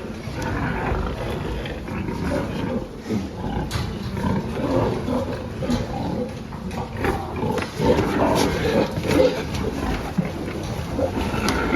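Pigs grunting, an irregular, overlapping jumble of calls with occasional knocks.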